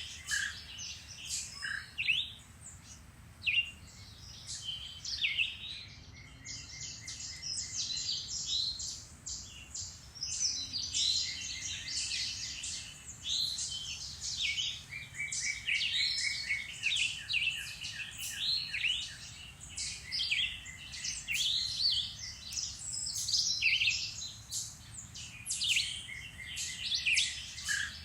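A chorus of several songbirds singing at once in woodland: quick chirps and whistled phrases overlapping without pause, with fast, evenly repeated trills among them.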